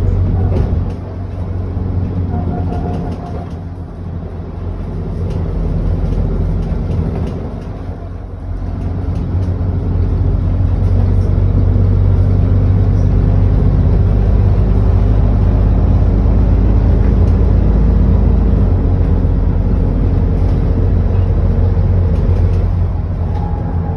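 ADL Enviro400 double-decker bus engine heard from inside the bus, dipping and picking up again a few times in the first eight seconds or so, then pulling steadily and loudly.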